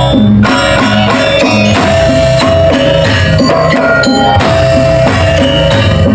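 Balinese Janger music with a steady drum beat under sustained melodic lines.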